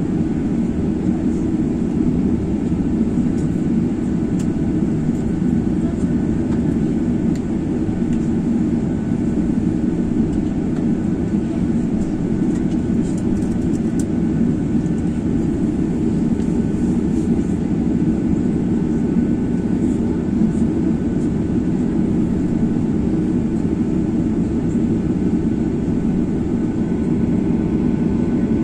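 Jet airliner engines and airflow heard from inside the passenger cabin: a loud, steady low noise with a few faint steady tones above it, holding level throughout.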